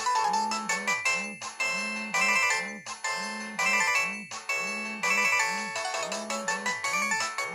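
Polyphonic ringtone of a Samsung SGH-P510 mobile phone playing: a busy synthesized melody over a steadily repeating bass line of swooping notes.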